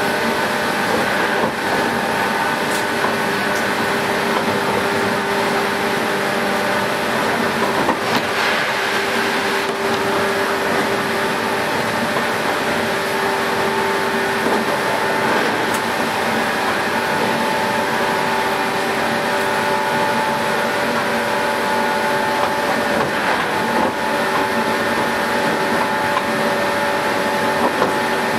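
JR West 117 series electric train heard from inside the car while running at speed: a steady traction motor and gear whine holding its pitch over the running noise of the wheels on the rails.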